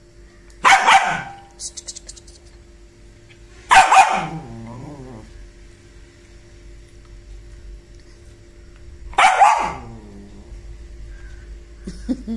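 Small white spitz-type dog barking three times, a few seconds apart, each bark falling in pitch as it ends. These are play barks, demanding that its owner play and tussle with it.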